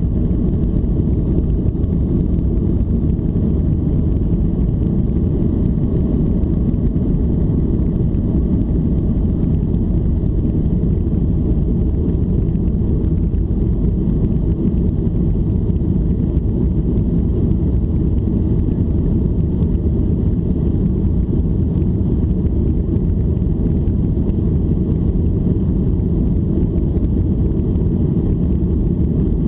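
Cabin noise of a Boeing 737-800 during takeoff and initial climb: a steady, loud, low roar of its CFM56-7B turbofan engines heard from a window seat.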